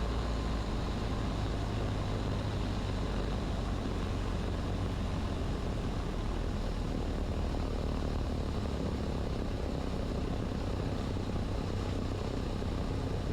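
Cessna 150's engine and propeller running at low landing power, a steady drone heard inside the cockpit, with a slight change in its low tone about eight seconds in.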